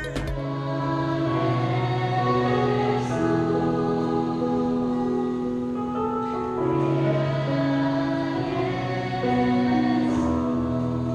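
Background music: slow, held chords with no beat, the notes changing every second or two.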